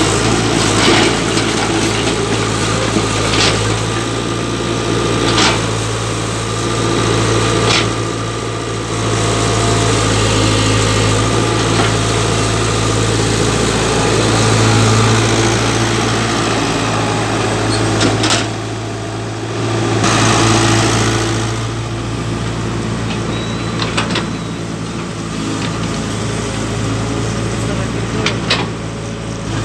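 Tata Hitachi EX70 hydraulic excavator's diesel engine running steadily, with a few sharp knocks from the working machine scattered through.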